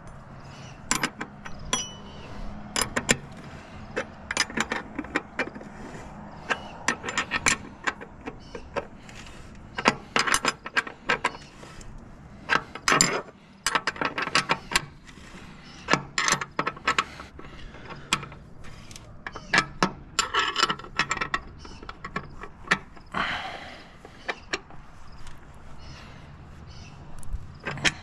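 Steel wrenches clinking and clicking on the bolts and metal housing of a grain pump during maintenance: irregular clusters of sharp metallic clicks and taps, some with a brief ring.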